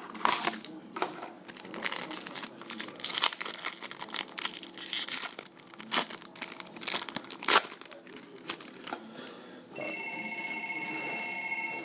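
A trading-card foil pack being torn open and crinkled, with sharp rustles and snaps as the wrapper and cards are handled. Near the end a steady electronic tone with several pitches sounds for about two seconds.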